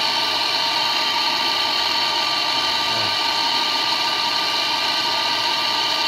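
Handheld gas torch burning with a steady hiss and a whine mixed in, its low flame heating an aluminium refrigerator tube before brazing.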